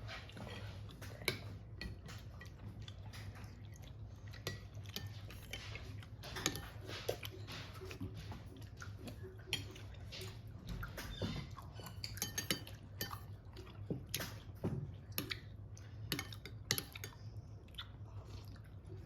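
People eating from bowls: scattered small clicks and taps of spoons against dishes, with chewing, over a low steady hum.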